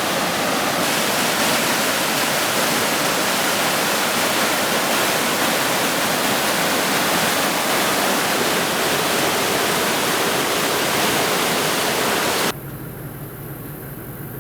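Steady, loud rush of fast-flowing mountain water. About twelve and a half seconds in it cuts off abruptly to a quieter, steady low hum.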